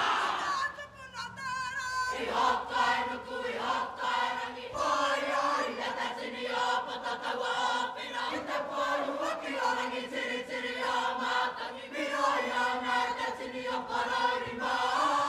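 Kapa haka group of women and men singing together. A single voice with a wavering pitch leads off, and the whole group comes in about two seconds in.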